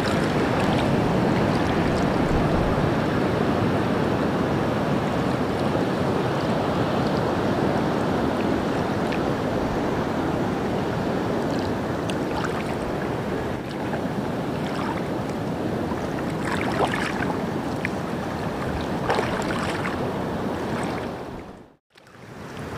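Water sloshing and swirling around a person wading waist-deep through a shallow river mouth, with wind on the microphone. The sound fades out to silence for a moment near the end.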